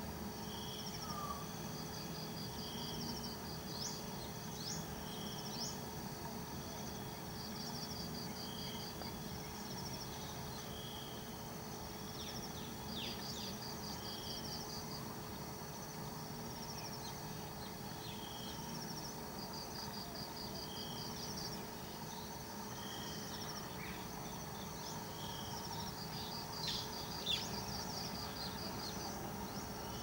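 Insects trilling in a chorus: short pulsed trills repeating every few seconds at a couple of high pitches, over a faint steady hum. A few brief high chirps are scattered through, the loudest near the end.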